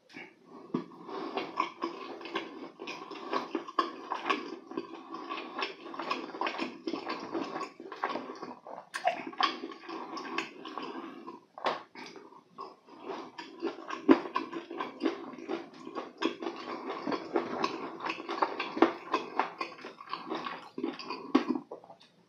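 Close-miked biting and chewing of sauce-glazed Korean fried chicken, with a continual run of wet smacks and clicks from the mouth.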